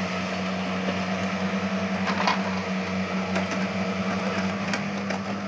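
Small JCB tracked excavator's diesel engine running steadily, with a few short knocks from the working machine about two to five seconds in.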